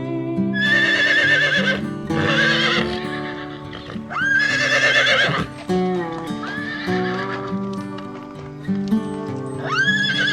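Horse whinnying about five times, each a high, wavering call, the loudest about four seconds in, over background music with sustained chords.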